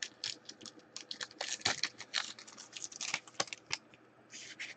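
A run of quick, irregular light clicks and scratchy rustles, close to the microphone.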